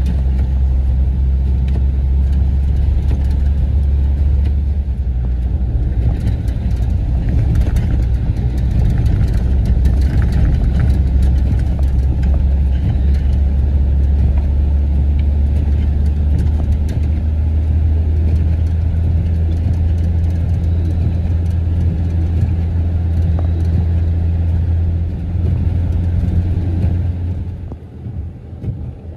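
Engine and road noise heard from inside the cab of a truck driving on a snow-covered road, a steady low drone. It drops away near the end.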